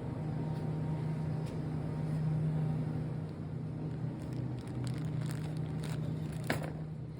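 A steady low mechanical hum, with a few light clicks and rattles in the second half and a short scraping sound near the end.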